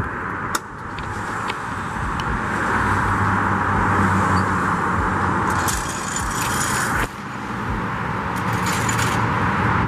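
Steady road noise of passing traffic, with a few brief light rattles about two-thirds of the way through and again near the end.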